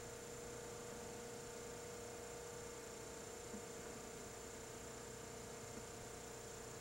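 Steady electrical hum with a constant hiss underneath, the background noise of an old analog home-video recording.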